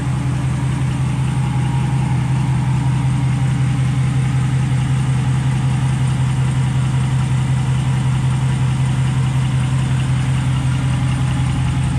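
Ram 1500's 5.7 Hemi V8 idling steadily through an aftermarket Borla exhaust, with the Borla front muffler resonator clamped in place of the factory resonator.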